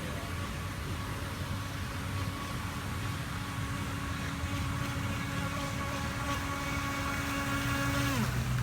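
Electric motor of a radio-controlled speedboat whining at a steady high speed, then winding down with a quick falling pitch near the end as the throttle is released.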